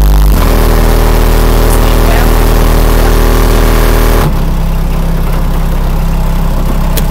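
Very loud deep bass from two RE Audio SEX 15-inch car subwoofers in a trunk, holding steady low notes that change pitch about half a second in and again about four seconds in.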